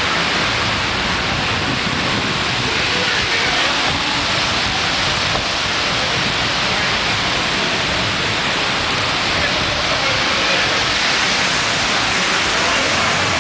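Steady loud rushing noise with indistinct voices mixed in.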